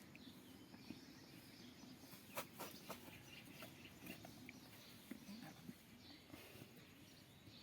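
Near silence: faint background with a few soft clicks or knocks about two and a half seconds in.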